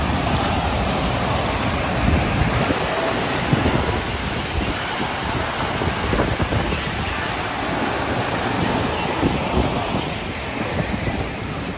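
Wind buffeting the microphone: gusty, irregular low rumbles over a steady rushing noise.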